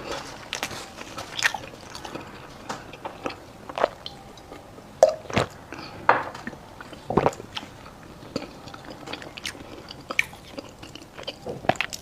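Close-miked chewing of mi san dao, a syrup-soaked fried Chinese pastry: wet, sticky mouth sounds broken by irregular crisp bites and crunches, the loudest about five and seven seconds in.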